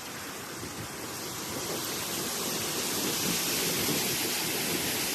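Steady rushing noise that grows louder and brighter from about two seconds in.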